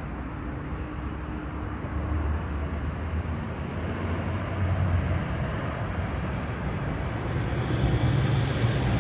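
Steady low engine rumble, like a vehicle idling or moving slowly, getting gradually louder toward the end.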